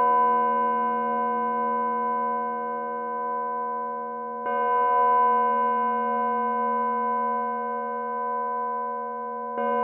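Synthesized sound model of an antique Russian bell cast at the Nikulichev foundry, about 10 poods (roughly 170 kg), struck about every five seconds. Each stroke, once about halfway through and again near the end, brings in a set of steady bell tones over a low hum, which ring on with a slow waver until the next stroke.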